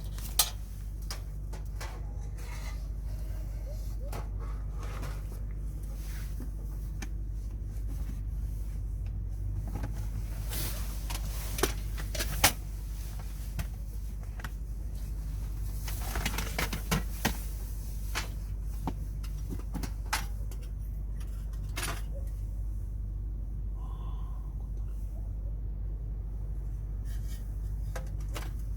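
Scattered clicks, clinks and knocks of small objects being handled over a steady low rumble; the sharpest knocks come about half a second in and again near 12 seconds.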